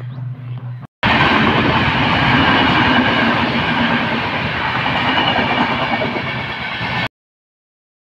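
Passenger train running past a level crossing: a loud, steady rush of wheel and rail noise that starts suddenly about a second in and cuts off abruptly near the end.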